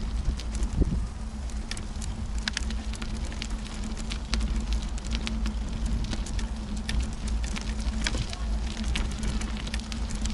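Wire-domed pet carrier being moved over a rough forest path: a steady low rumble with many small irregular clicks and crackles, like grit and twigs under its wheels.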